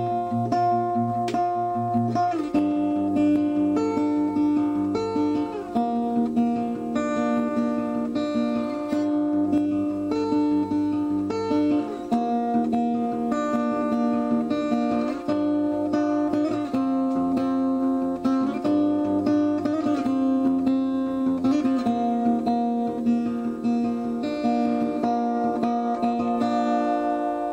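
Acoustic guitar music, with plucked and strummed notes.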